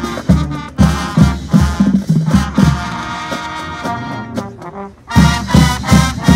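High school marching band playing: brass horns over a steady beat of bass drum strikes, about two a second. The band drops away briefly just before five seconds in, then comes back loud with heavy drum hits.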